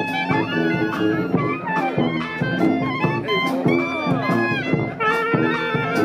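Street brass band playing a lively jazz-style tune: trumpets, saxophones and clarinet sounding together over drum hits.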